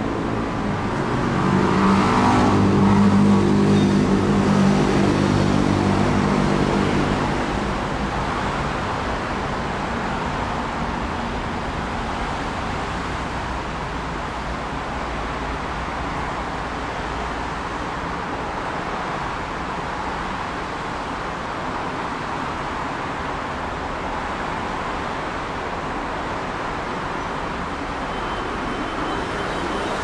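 Steady road traffic noise, with one vehicle's engine swelling loudly as it passes during the first several seconds, then fading back into the traffic.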